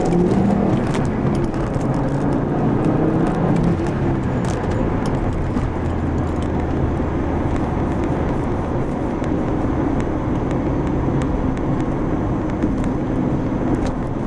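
Volvo 850 R's turbocharged 2.3-litre five-cylinder engine running while the car drives, heard from inside the cabin. A steady engine note for the first few seconds gives way to mostly road and tyre noise about four seconds in, and the engine comes back faintly near the end.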